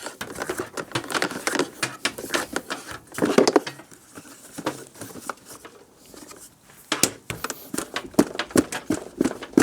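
Clicks, taps and scrapes of hands and a tool working a wire retaining clip off a pressure washer's plastic housing, a run of short irregular knocks.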